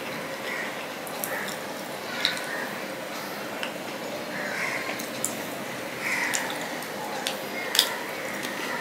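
Fingers mixing rice with curry on a steel plate: soft wet squishing with scattered small clicks, the sharpest about two seconds in and again near the end.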